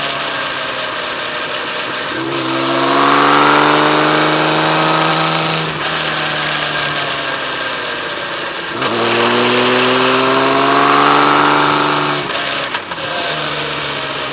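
Kawasaki Z1300's inline six-cylinder engine running under way. Its note jumps up sharply about two seconds in and again near nine seconds, then sinks slowly each time, with a brief dip near the end.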